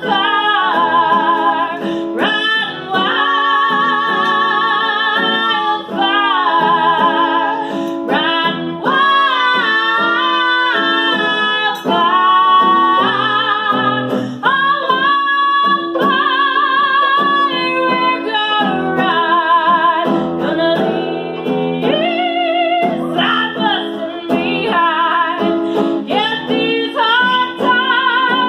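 Live female country vocals with acoustic guitar and a bowed fiddle playing along.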